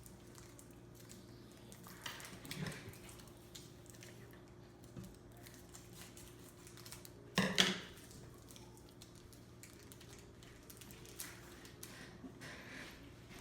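Light rustling and clicking of a foil Pokémon booster pack being opened and its cards handled, with one louder, brief rustle about seven and a half seconds in.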